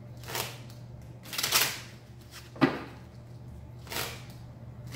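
A deck of regular playing cards being shuffled by hand: four short papery bursts about a second apart, the one just past the middle a sharp snap.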